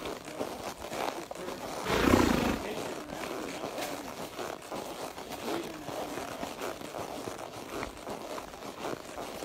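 A horse snorting: one short, noisy blast of breath about two seconds in, the loudest sound here.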